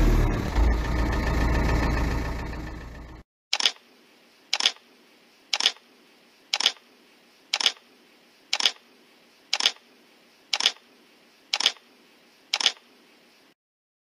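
A tractor engine running, cut off about three seconds in. Then ten camera-shutter clicks, about one a second.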